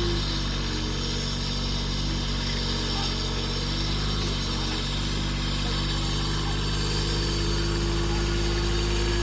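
An engine running steadily at a constant speed, with an even hum that does not rise or fall.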